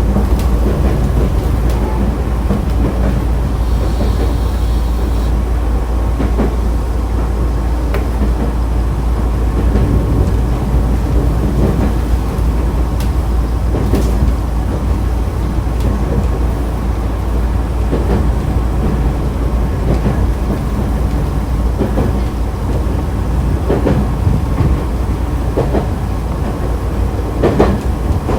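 Nankai Kada Line electric train, set 2036F, running along the track: a steady low rumble of wheels on rail, with scattered clacks from rail joints that come closer together near the end.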